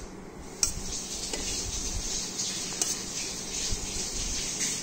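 A steel spoon scooping thick curd from a steel pot and dropping it onto chopped raw vegetables in a steel bowl: soft wet scraping, with a few sharp clicks of spoon against steel.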